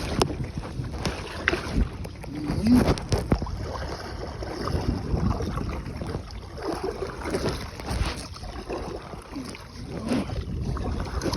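Canoe paddle strokes dipping and splashing in lake water, with a breeze buffeting the microphone as a low rumble.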